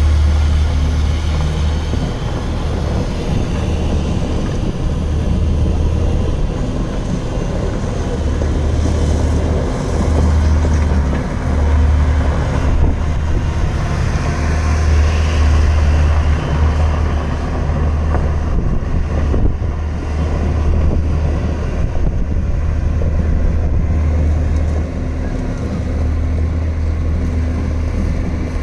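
Diesel engine of a 2003 JCB JS145 wheeled excavator running, a steady low drone whose level swells and dips every few seconds.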